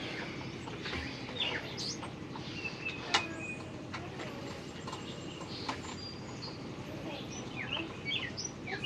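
Small birds chirping repeatedly in short, quick calls, with a single sharp click about three seconds in.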